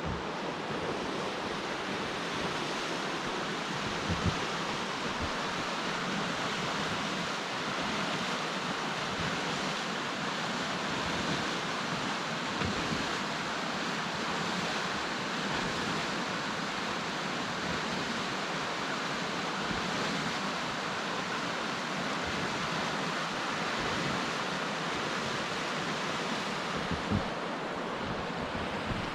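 Steady rushing hiss of wind in a heavy snowstorm. A couple of low thumps of wind buffet the microphone, once about four seconds in and once near the end.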